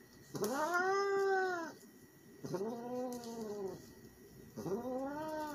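Domestic cat yowling three times, long drawn-out calls that rise and then fall in pitch, in protest at having its claws clipped.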